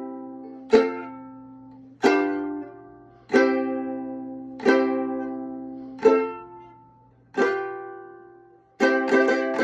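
Strummed chords on a plucked string instrument, each left to ring and fade, about one every 1.3 seconds; near the end it switches to quick, repeated strumming.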